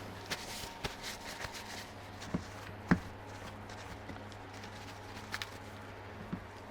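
Clicks and taps of small plastic parts being handled on a workbench, with one sharper knock about three seconds in, over a faint steady low hum.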